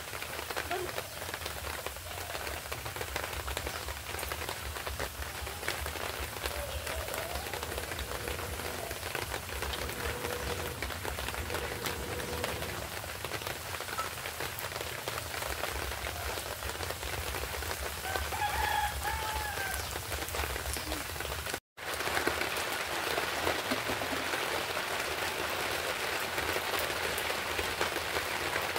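Small fish sizzling and crackling in oil in a pan over a wood fire; the sizzle turns louder after the sound drops out for an instant about three-quarters of the way in. A bird calls faintly about two-thirds of the way through.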